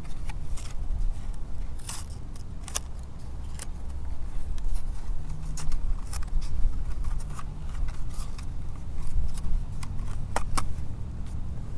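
Wind buffeting the microphone with a steady low rumble, over scattered sharp clicks and ticks of fishing tackle being handled as a wacky-rig hook is put on.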